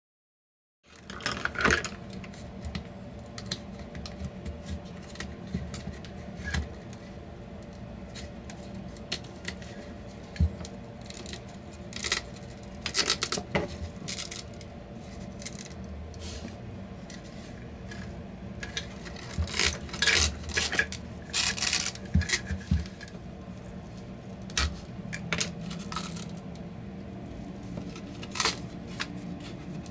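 Hand tools and small metal parts clicking, tapping and scraping while a Bluetooth speaker is taken apart, in scattered clusters over a steady low hum. The sound starts about a second in.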